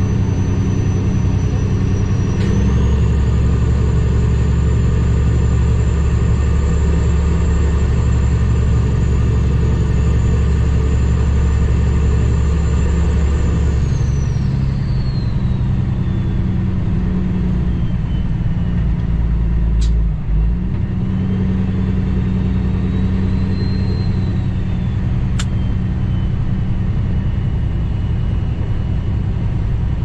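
Cummins ISX diesel engine of a 2008 Kenworth W900L truck under way: a steady low drone with a high whine that climbs as the engine pulls and sinks as it eases off, twice over. The drone breaks briefly about twenty seconds in, and there are a few sharp clicks.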